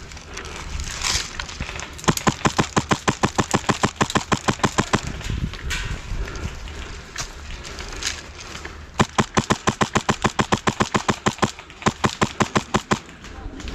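Airsoft gun firing on full auto: a long string of rapid shots about two seconds in, a few single shots, then another long string from about nine seconds in.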